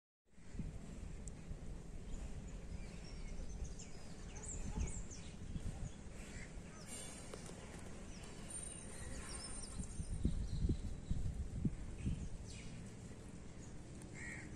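Outdoor ambience: a low rumble of wind on the microphone, stronger a little past the middle, with birds chirping faintly in the background.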